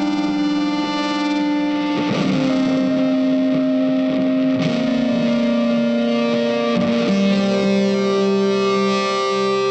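Background music: long held chords that change about every two to three seconds.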